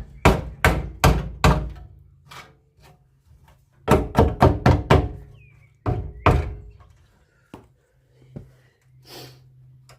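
Dull blows knocking the bent front corner of a Trabant 601's bodywork back into shape, in quick runs: four at the start, five about four seconds in, then two more, with a few lighter knocks near the end.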